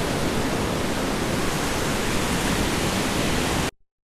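Steady rushing noise of wind on the microphone and ocean surf on a beach, cutting off abruptly near the end into silence.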